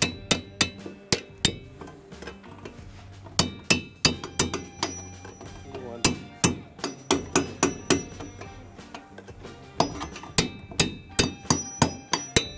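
Runs of sharp strikes, several a second in bursts with short pauses between, as nails are driven into wood framing.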